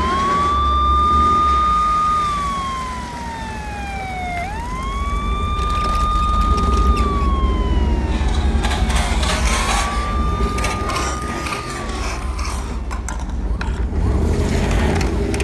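Siren wailing: the pitch jumps up, holds a high note for about two seconds, then slides slowly down, three times, the third cycle fainter. Over a low rumble, with plastic clicks and rattles in the second half.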